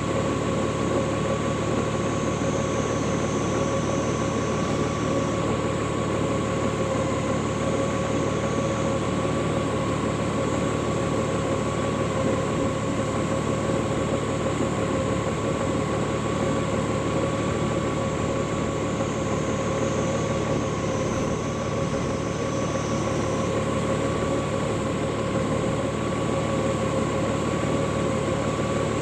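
Honda Gold Wing motorcycle engine idling steadily while the bike stands still, an even hum with no revving.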